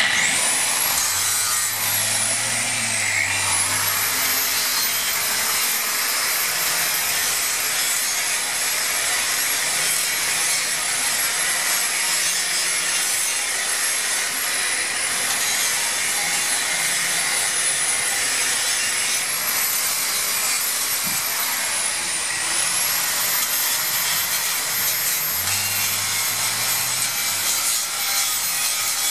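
Electric angle grinder grinding rusty steel down to bare metal to make ground-clamp spots for a plasma cutter. Its high motor whine runs steadily, briefly dropping in pitch and recovering three times.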